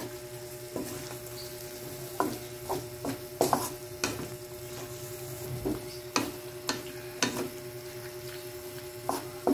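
Wooden spatula stirring and scraping vegetables and chicken around a large aluminium wok in a dozen or so irregular strokes, with the food sizzling underneath.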